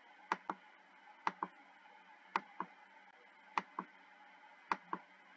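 Computer mouse clicking while paging through a PDF, five clicks about a second apart, each a quick press and release, over faint room hiss.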